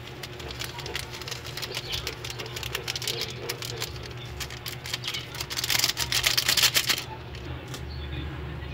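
Plastic seasoning sachet shaken and tapped over a pot to empty ground seasoning onto fish, a rapid crinkly clicking that grows to a dense flurry and stops suddenly about seven seconds in. A steady low hum runs underneath.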